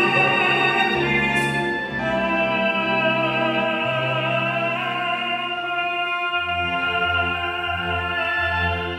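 Classical singing with chamber orchestra in a Mass setting, operatic voices with vibrato over sustained orchestral chords. A low bass line comes in about six seconds in.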